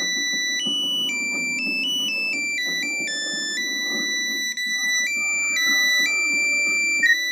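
Nokia 3315 mobile phone playing a monophonic ringtone: a beeping melody of single notes stepping up and down in pitch, a few notes a second. Muffled TV sound runs underneath.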